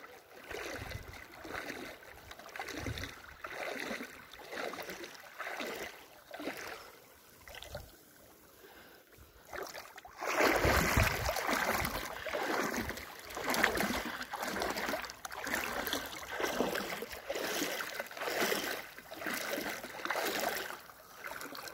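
Bare feet wading through shallow sea water, a splashing swish with each step about once a second. There is a short lull, then the splashing comes back louder about ten seconds in.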